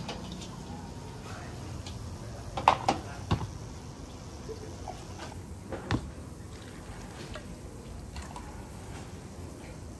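Soup broth being ladled and poured into a bowl, with a few sharp clinks of metal utensils against pot and bowl: a cluster about three seconds in and another near six seconds.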